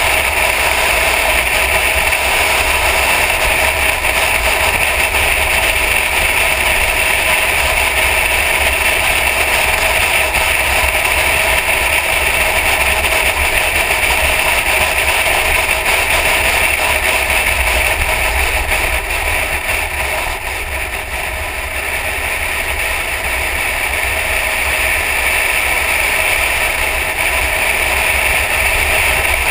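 A Mercedes-Benz E63 AMG driving at speed on a racetrack: a steady rush of wind on the hood-mounted camera, with the engine running underneath. The level eases for a moment about twenty seconds in.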